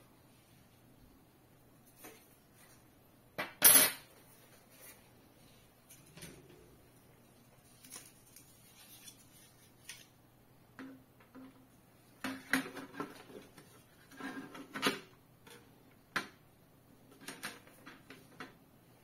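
Hard white plastic frames and body of an LED ceiling light being handled and knocked together during assembly: scattered clicks and clatters. The loudest is a sharp clatter about four seconds in, with bunches of knocks later on.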